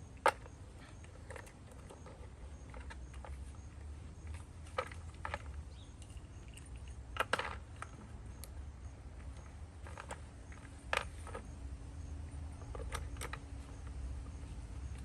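Sharp plastic clicks and knocks, about ten scattered irregularly with the loudest near the start, as caster wheels are handled and pushed into a plastic planter mover base.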